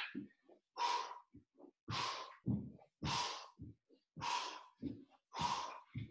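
A man's hard, rhythmic exhales from the effort of holding a plank and moving his legs: about five sharp breaths, roughly one a second, with faint low thuds between them.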